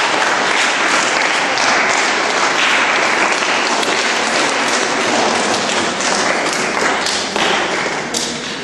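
Audience applauding, a dense patter of clapping that thins out and fades near the end.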